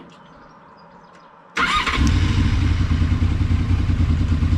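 Honda VFR800 V4 engine with an aftermarket exhaust being started: it catches suddenly about a second and a half in and settles straight into a steady idle, picked up close to the exhaust outlet.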